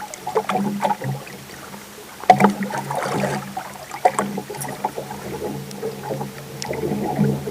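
A fishing boat on the water: a steady low motor hum with irregular knocks and splashes of water against the hull.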